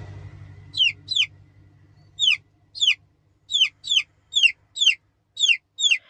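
Young Aseel chicks, a little over a month old, peeping: about ten short, loud calls, each falling sharply in pitch, at irregular intervals.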